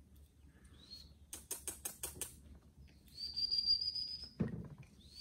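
Birds calling in the trees: a short rising whistle, then a quick run of about six sharp clicks, then a long high whistle held for over a second and another rising whistle near the end. A low thump comes about four and a half seconds in.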